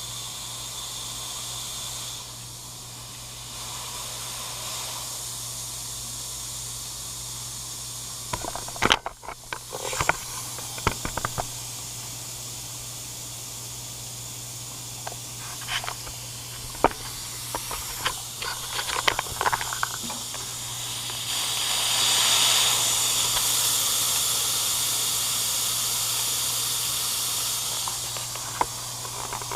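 High-pressure air hissing out through the bleed valve of a Tuxing twin-cylinder HPA compressor as the system is slowly depressurized after a fill. The hiss runs steadily, with scattered clicks and knocks through the middle, and grows louder for several seconds about three quarters of the way through.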